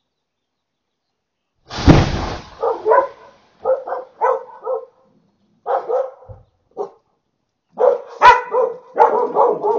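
A building explosion going off about two seconds in, one sudden loud blast with a deep rumble, heard through a doorbell camera's microphone. A dog then barks repeatedly, with a sharp crack about eight seconds in.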